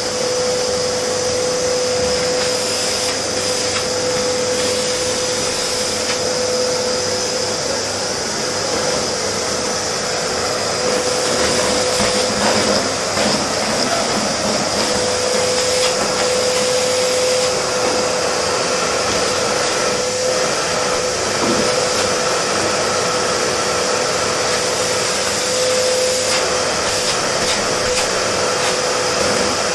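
Vacuum cleaner running steadily while cleaning a floor: a rush of air with a steady hum and a high whine above it, and short clicks here and there.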